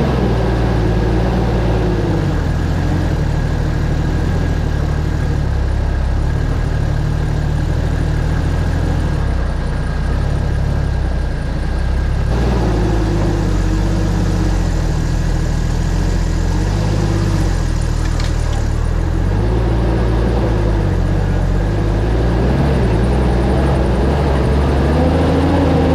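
Diesel four-wheel-drive engine running under load off-road, its revs rising and falling.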